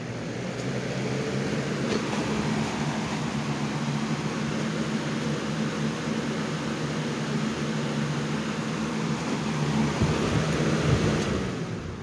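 Lasko 3733 20-inch box fan running on high: a steady rush of air over a low motor hum, growing a little louder over the first couple of seconds as it comes up from low speed. About eleven seconds in the motor hum stops and the fan begins to spin down. Its blades run a little out of balance, which the owner puts down to the condition of the blades.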